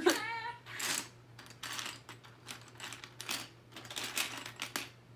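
Loose plastic LEGO pieces clattering and clicking as a bag of bricks is dumped out and rummaged through, in quick irregular rattles.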